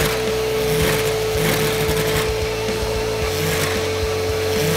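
Vacuum cleaner running steadily with a constant motor whine, its hose nozzle sucking dust out of an open desktop PC case.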